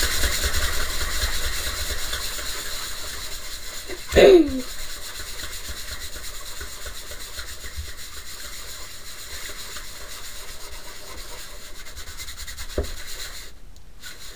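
Cloth rag rubbing teak oil into a wooden bandsaw box, a steady scrubbing, strongest in the first couple of seconds. A brief pitched squeak about four seconds in.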